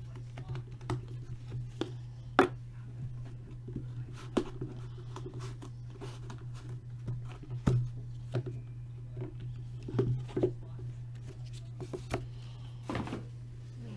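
Hands opening a sealed trading card box and pack: scattered sharp clicks, taps and handling noises of cardboard and wrapping, over a steady low electrical hum.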